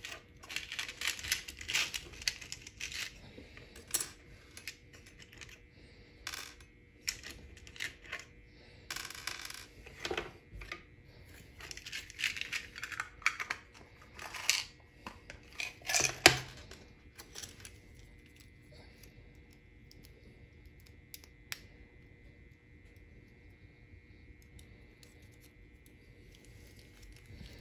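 Small N scale model-train parts clicking and clinking as they are handled in a clear plastic case and tipped out onto a countertop: an irregular run of sharp clicks that stops about two-thirds of the way through, leaving only faint room tone.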